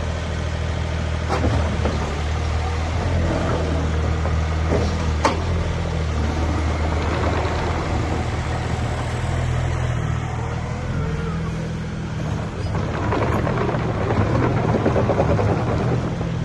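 JCB 50Z-2 mini excavator's diesel engine running steadily, with a sharp knock about a second in and another about five seconds in; the engine works harder and gets louder for a few seconds near the end.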